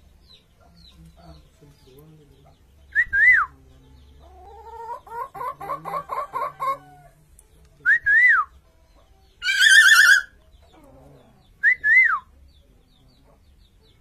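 Common hill myna calling: a two-note whistle three times, a quick rising run of short clucking notes in imitation of a chicken, and a loud harsh wavering call between the second and third whistles.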